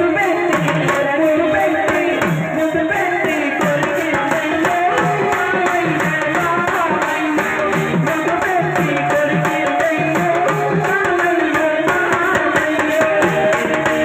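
Telugu folk song for a chekka bhajana dance: a woman's amplified singing over a steady drum beat, with wooden chekka clappers clacking in time.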